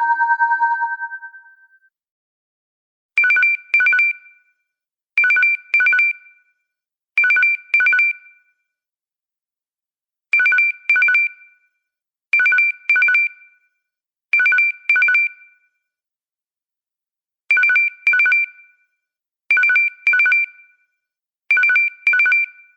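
LG K4 LTE phone ringtone: an electronic two-tone ring in quick double rings, three doubles about two seconds apart, then a short pause and the next set. A held two-note chime from the previous tone fades out before it starts.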